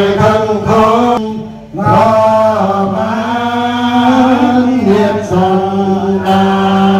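Theravada Buddhist chanting in Pali, voices holding long, steady notes that step between a few pitches, with a short breath pause about a second and a half in.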